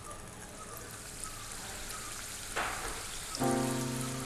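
Bread gulab jamun dough balls frying in hot sunflower oil: a soft, even sizzle, with a brief louder hiss about two and a half seconds in as another ball goes into the oil. A steady droning hum comes in near the end.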